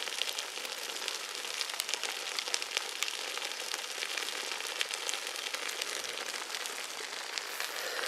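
Grass and brush fire crackling: a steady hiss dotted with many small sharp pops.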